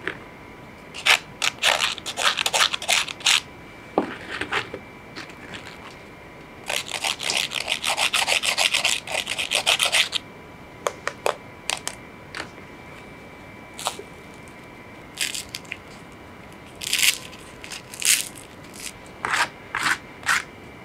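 Crispy French fries scraping and rustling against each other as they are picked off a pile by hand, in short crackly bursts, with a longer dense run of rapid crackling about seven to ten seconds in.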